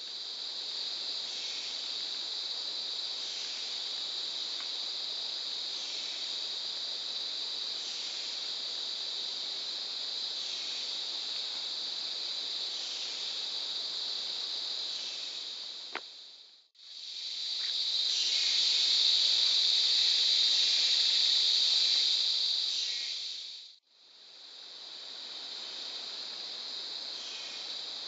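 Steady, high buzzing drone of a tropical rainforest insect chorus. It fades out and back twice, with the middle stretch the loudest. A single sharp click comes just before the first fade.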